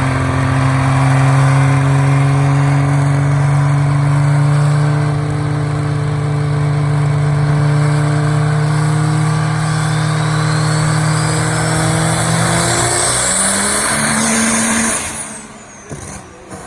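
A motor vehicle's engine pulling under load, its pitch rising slowly and steadily for about thirteen seconds before the sound drops away.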